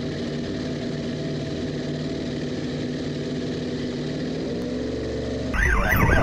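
Small boat's outboard motor running steadily under way, its pitch creeping up a little near the end. Just before the end the sound cuts abruptly to something louder with a wavering high tone.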